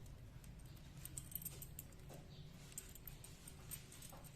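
Faint scattered clicks and rattles of a key and a motorcycle disc-brake lock being worked to unlock it, over a low steady hum.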